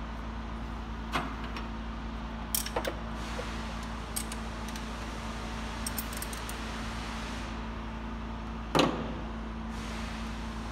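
Scattered metallic clinks of a steel spanner on the rocker-arm adjusting nuts of a Tofaş 1600 four-cylinder engine during valve clearance adjustment, about half a dozen taps with the loudest near the end, over a steady low hum.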